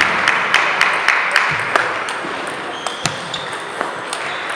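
Table tennis balls clicking off bats and tables in a rally, quick clicks about three or four a second for the first two seconds, then sparser, over steady hall noise.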